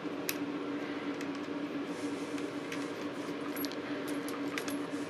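A few faint, light metal clicks as an idler pulley and its bolt are handled and fitted onto an engine bracket by hand, over a steady low hum.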